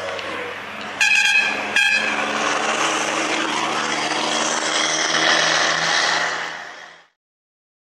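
Truck air horn blown twice, a chord of several tones: a blast of most of a second about a second in, then a short one. Under and after it a heavy truck's engine and road noise run steadily, then fade and cut off near the end.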